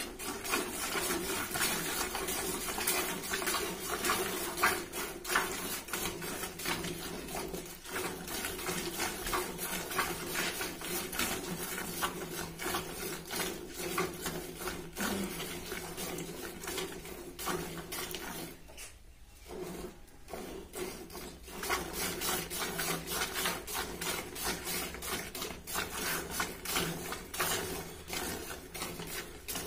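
Cow being milked by hand: milk squirting into a plastic bucket in quick, rhythmic jets, with a short pause about two-thirds of the way through.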